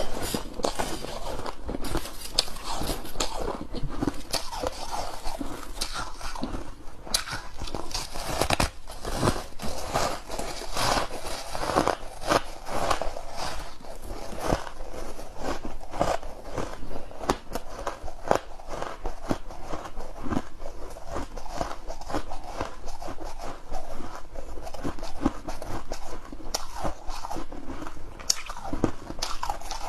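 Frozen freezer ice being bitten and chewed close to the microphone: continuous, irregular crunching with many sharp cracks.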